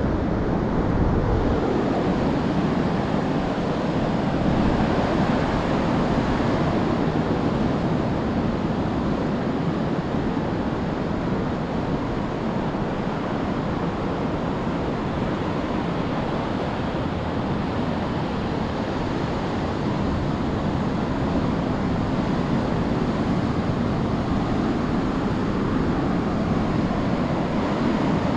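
Ocean surf breaking on a sandy beach: a steady, even rush, with wind on the microphone.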